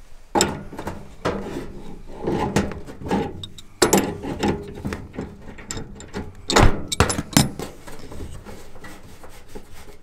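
Adjustable wrench loosening the brass gas-line fitting on an RV furnace: irregular metal clicks, knocks and scraping, with a few sharper knocks around the middle.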